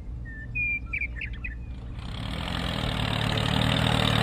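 Birds chirping a few short times in the first half over a low hum. Then a small tractor engine sound sets in about two seconds in and grows steadily louder.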